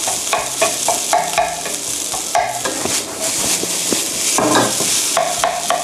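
Rice frying in oil in a frying pan, sizzling steadily, while a wooden spatula scrapes and presses through it in repeated irregular strokes to break up the clumps of rice.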